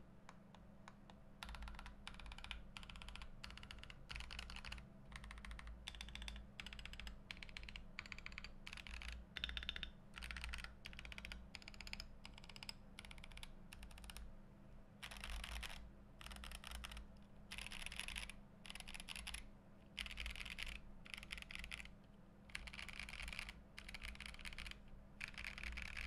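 Typing on a GMMK Pro mechanical keyboard with lubed Boba U4T tactile switches, an FR4 plate, plate and case foam and Akko ASA keycaps. A few scattered key presses are followed, after about a second and a half, by steady runs of keystrokes with short pauses between them.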